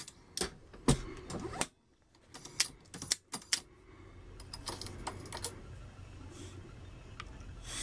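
Light clicks and clinks of brass cartridge cases being handled on a reloading press shell plate and bench, in irregular clusters. The sound drops out completely for about half a second about two seconds in.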